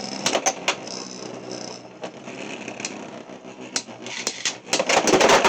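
Beyblade X spinning tops whirring in a plastic stadium, with sharp clicks as they collide and a louder burst of clattering hits near the end.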